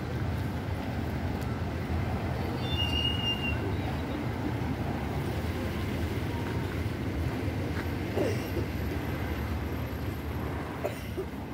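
Steady city street traffic: the low rumble of cars and vans driving past.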